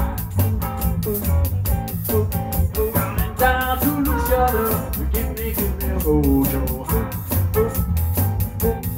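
Electric Chicago-style blues band playing: guitar, bass and drum kit with a steady beat, and a pitched melody line on top.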